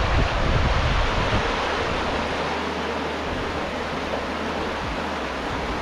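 Steady rush of flowing river water, an even hiss with no rhythm or tone.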